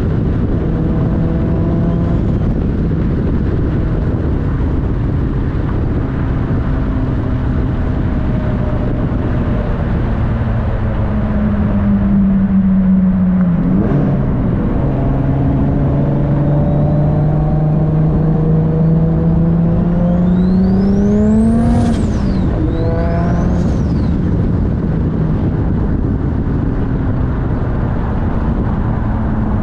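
RB25-swapped 1995 Nissan 240SX's turbocharged straight-six heard from inside the car as it pulls under load, its pitch climbing with the revs and dropping sharply when the throttle is lifted, about two-thirds of the way in and again a couple of seconds later. A thin high turbo whistle rises with each pull and falls away as the revs drop.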